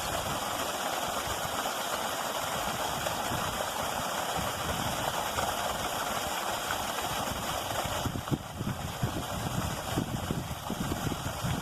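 Steady rushing of creek water pouring over a small fall. From about eight seconds in, uneven low rumbles and bumps break in over it.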